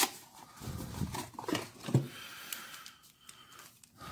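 A cardboard box and a trading-card pack being handled as the pack is pulled out and opened: rustling paper and cardboard, with several short sharp sounds in the first two seconds, then quieter rustling.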